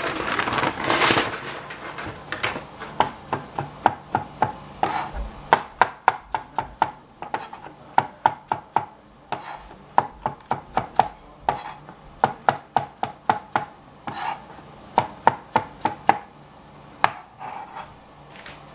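Chef's knife slicing shiitake mushrooms on a plastic cutting board: a long run of sharp, irregular knocks, a few a second, as the blade strikes the board, after a brief rustle at the start.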